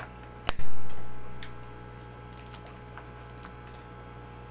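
Diagonal cutters snipping off a protruding metal welding staple with one sharp, loud snap about half a second in, followed by a few light clicks.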